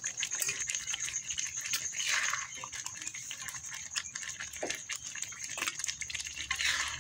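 Thick spice sauce bubbling and spattering in a hot wok as sauce-coated chicken feet are spooned in, with the spoon clicking and knocking against the pan and bowl.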